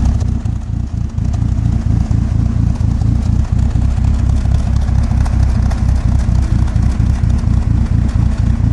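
Vehicle engine idling roughly: a steady low running sound broken by uneven, irregular pulses, the uneven idle being the fault that is shown.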